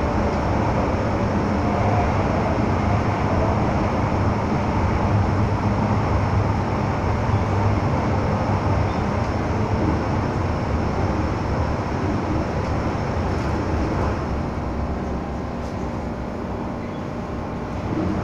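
Interior running noise of an MTR M-Train (Metro-Cammell electric multiple unit): a steady rumble of wheels and motors under the car. It eases off somewhat in the last few seconds as the train slows.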